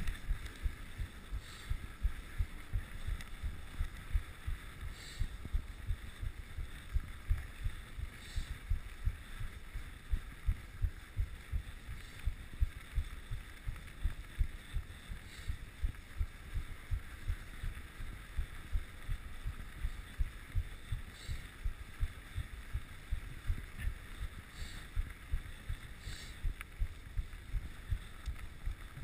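Mountain bike riding over a snow-covered trail, picked up by a rider-mounted action camera: dull, muffled thumps about twice a second over a faint steady hiss, with a few light clicks now and then.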